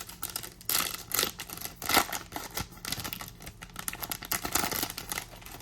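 A foil trading-card pack wrapper crinkling and tearing as the pack is opened, a busy run of irregular crackles and rustles.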